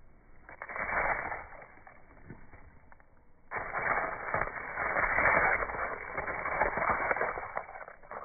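Moss stalks and spore capsules rustling and crackling as a finger brushes through them close to the microphone: a short burst about half a second in, then a longer, louder stretch of dense crackling from about three and a half seconds until near the end.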